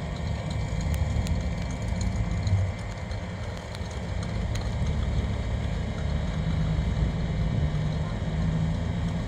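Rat rod pickup truck's engine running at low speed as the truck drives slowly by and turns in, a steady low rumble that swells briefly a couple of seconds in.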